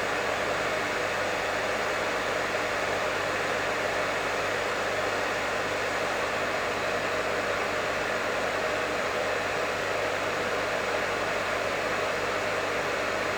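Professional hair dryer running steadily, a continuous even rush of air with a low hum underneath.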